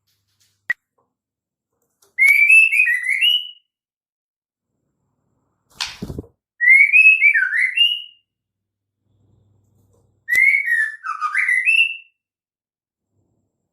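Female white-rumped shama calling: three warbling whistled phrases, each about a second and a half long and sliding up and down in pitch, a few seconds apart. A sharp knock comes just before the second phrase.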